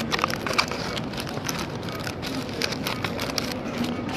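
Rustling and crackling of a paper sandwich wrapper being handled close to the microphone, many quick crinkles in a row.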